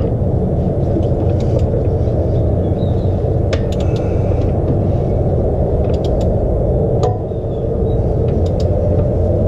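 Steady low rumble with a few sharp metallic clicks while an LS1 V8's crankshaft is turned over by hand at the harmonic balancer bolt, rotating the flexplate. There is a louder click about seven seconds in.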